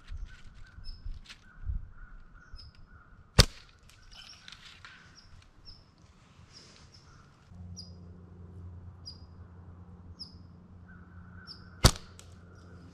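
Two sharp snaps of a bow being shot, about eight seconds apart. Between them a small bird gives short high chirps about once a second, and a low steady hum comes in about halfway.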